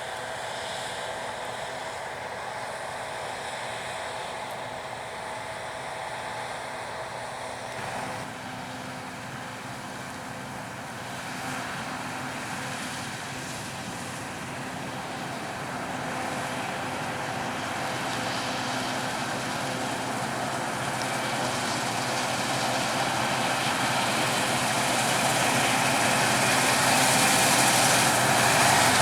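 Heavy farm machinery engine running steadily, growing louder over the second half as it draws closer.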